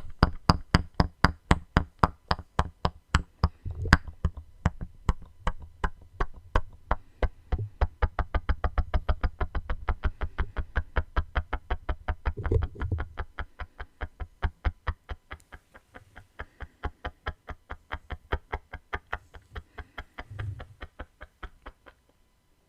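Mouth sounds made through a hose for ASMR: a fast, even run of sharp clicks, about five or six a second, that stops shortly before the end.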